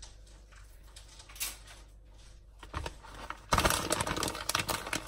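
Plastic shredded-cheese bag crinkling and rustling as it is shaken out over the dish, starting suddenly about three and a half seconds in with a dense crackle.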